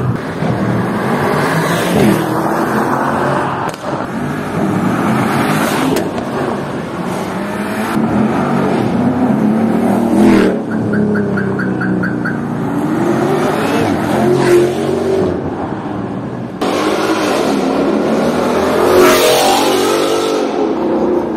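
Sports cars accelerating hard away one after another, their engines revving with pitch climbing through the gears, the sound breaking off abruptly at several edits. A short run of evenly spaced beeps sounds about halfway through.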